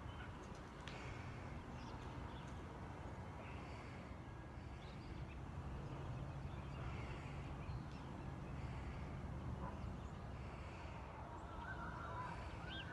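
Faint outdoor ambience: a steady low rumble with distant birds calling every second or two, the calls a little clearer near the end.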